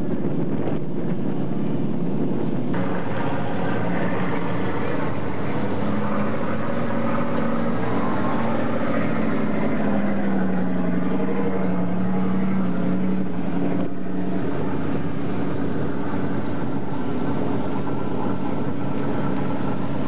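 Race car engines running steadily, one engine's note sagging slightly in pitch around the middle.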